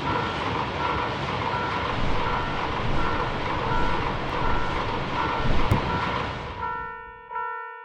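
A level crossing warning bell rings in a steady repeating pattern while a train rushes past. The train noise fades out about a second before the end, leaving the bell ringing on its own.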